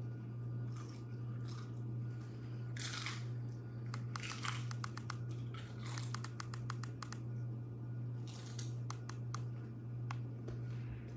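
Crinkling and rustling with a quick run of sharp clicks in the middle, over a steady low hum.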